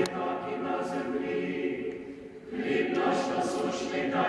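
Ukrainian church choir singing an unaccompanied liturgical chant for a panakhyda memorial service, with a brief pause between phrases about two seconds in before the voices come back in.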